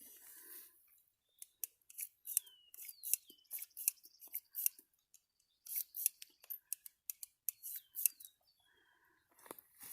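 Ruger Wrangler .22 single-action revolver being unloaded through its loading gate: small metallic clicks as the cylinder is turned and the spent cases are pushed out one at a time, in two quick runs.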